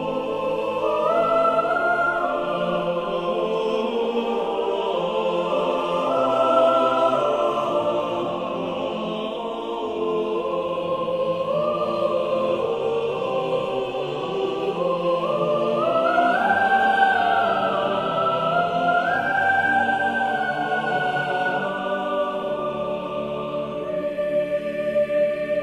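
Slow classical choral singing with long held notes that step slowly up and down, swelling gently twice.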